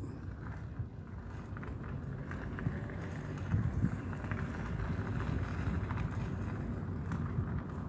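Wind buffeting the microphone: a low, uneven rumble, with a few faint light ticks.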